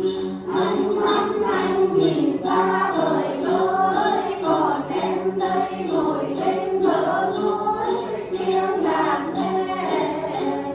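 A song sung by a group of voices over a musical accompaniment, with a steady jingling beat about twice a second.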